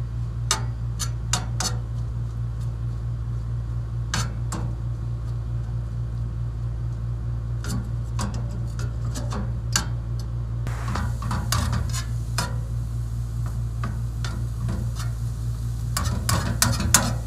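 Metal slotted spatula scraping and clicking against a steel skillet as diced onions and bell peppers are stirred over a high gas flame, over a steady low hum. A faint sizzle comes in about two-thirds of the way through as the pan heats up.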